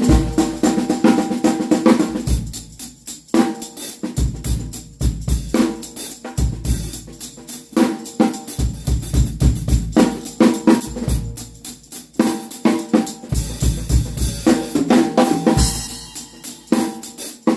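Drum kit played as a continuous groove, kick and snare strokes with the steel jingles of a tambourine attachment on one stick jangling along with that stick's strokes.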